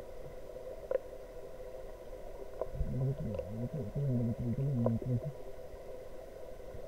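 A low, muffled voice heard for about two seconds in the middle, over a steady dull background noise.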